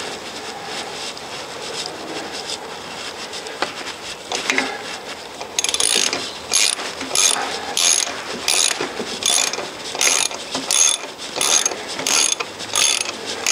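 Ratchet socket wrench clicking in steady strokes, about one and a half a second, as a 13 mm bolt is done up into a wall plug in brick. The ratcheting starts about halfway in, after some quiet handling.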